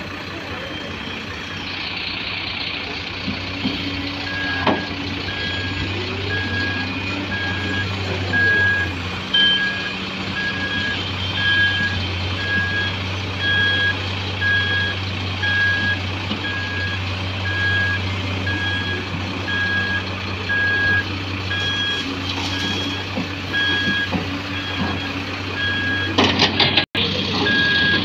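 Back-up alarm on heavy earthmoving equipment beeping at an even pace, starting a few seconds in, over the steady low running of heavy diesel engines while the excavator loads soil into a tipper truck.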